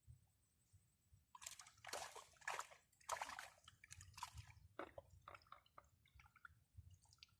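Faint water sloshing and splashing in a few short bursts, followed by scattered small drips and wet ticks.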